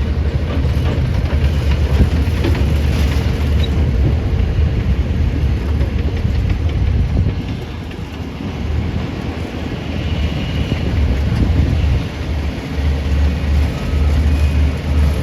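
Heavy diesel engine of an excavator running steadily with a deep drone, easing off briefly about eight seconds in and then picking up again.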